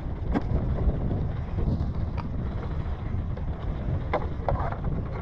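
Wind buffeting the microphone as a steady low rumble, with a few short knocks.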